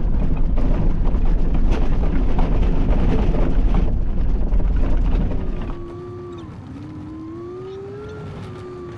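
Inside the cab of a Bucher Duro expedition truck driving on washboard gravel: heavy rumbling with rattling clatter. About five and a half seconds in, the clatter drops away suddenly, leaving a quieter steady drive noise with a whine that dips and then rises in pitch.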